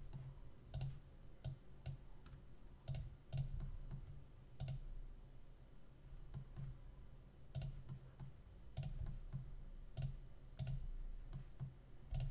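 Computer mouse clicking at irregular intervals, a dozen or more short, sharp clicks with a pause of a couple of seconds in the middle, as single pixels are placed one at a time.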